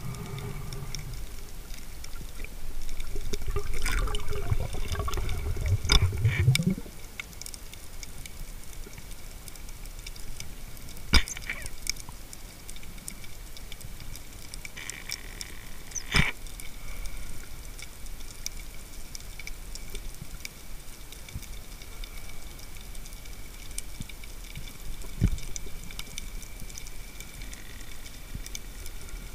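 Underwater sound from a spearfishing dive: a few seconds of rushing, bubbling water about three seconds in, then a steady faint hiss broken by three sharp clicks spread through the rest.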